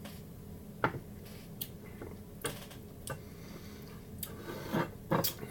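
Mouth and lips smacking while tasting hot sauce: a handful of short, irregular clicks and smacks.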